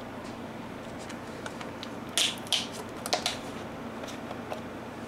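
A few short, sharp clicks and scuffs from objects being handled on a tabletop, bunched about two to three seconds in.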